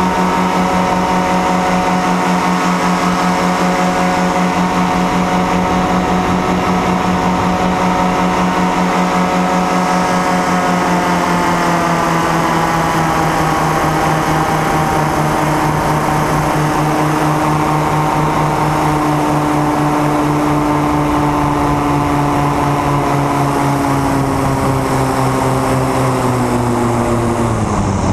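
Engine and propeller of a small aircraft running steadily under power. Its pitch drops a little about eleven seconds in and falls off more steeply near the end as the revs come down.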